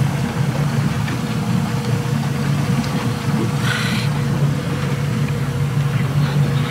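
Boat engine running steadily, heard from on board as a low hum with a faint steady whine above it. A brief rustling noise about four seconds in.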